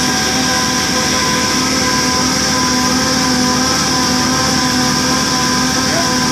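Line boring machine running steadily: a constant hum carrying several held tones over a high hiss.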